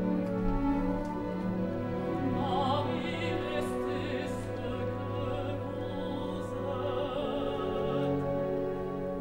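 A female opera singer singing with wide vibrato over sustained orchestral strings.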